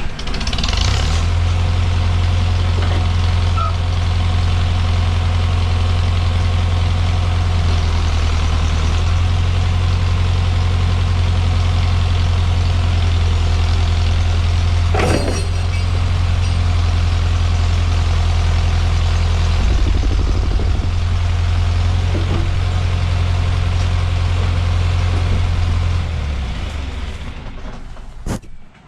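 John Deere skidder's diesel engine running steadily under load during a winch brake test, with one sharp clank about halfway through; the engine drops off a few seconds before the end. The winch brake band is still slipping.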